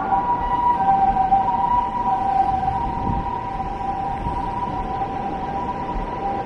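A Japanese ambulance's two-tone hi-lo siren sounding steadily, over a low rumble of city noise.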